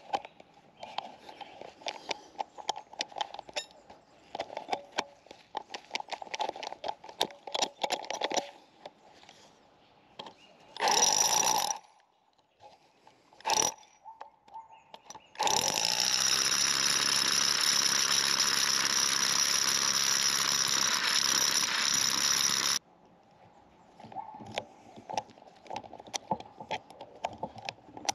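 Parkside Performance 20V cordless rotary hammer drill, with a long masonry bit, starting in two short bursts and then running steadily for about seven seconds before stopping sharply. Scattered clicks and scuffs of handling come before and after.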